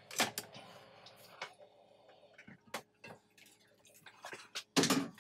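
Scattered small clicks and taps from hands handling things at a workbench, over a faint steady hum, with one louder knock shortly before the end.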